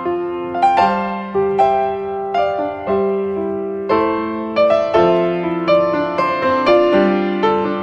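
Background piano music: a slow, gentle melody of struck notes, each fading before the next.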